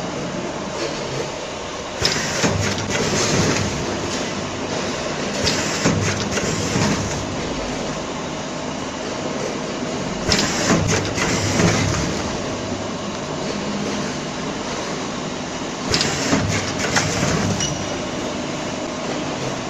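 Vertical form-fill-seal packing machine running with a steady mechanical hum. Louder clattering bursts come every few seconds as it cycles through bags.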